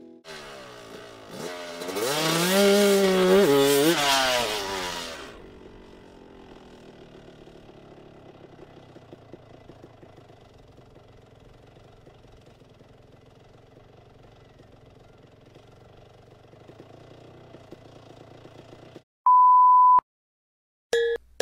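A crashed dirt bike's engine revs hard for about three seconds, then keeps running faintly at a low idle while the bike lies on its side. Near the end comes a steady one-second test-pattern beep, then silence.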